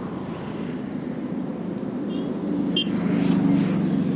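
Highway traffic passing close by: a vehicle's engine and tyre noise grow louder to a peak about three seconds in, then ease off, over a steady low hum.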